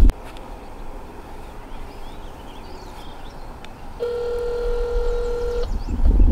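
Mobile phone on speaker sounding a call's ringing tone: one steady electronic tone lasting about a second and a half, starting about four seconds in. Low wind rumble on the microphone comes back near the end.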